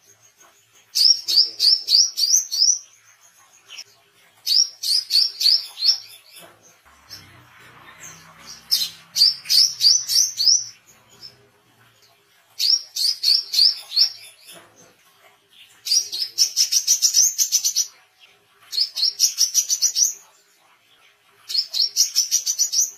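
Brown-throated sunbird singing: repeated bursts of rapid, sharp, high chirping notes. There are about seven bursts, each a second or two long, with short pauses between them.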